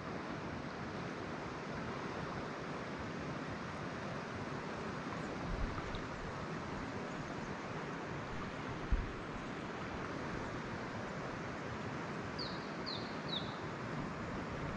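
Steady outdoor background noise of wind or moving water, with a bird giving three short falling chirps near the end and two dull low thumps earlier on.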